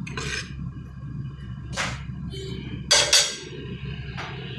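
Cooking utensils clattering in a pot: a few short knocks and scrapes, the loudest about three seconds in, over a steady low hum.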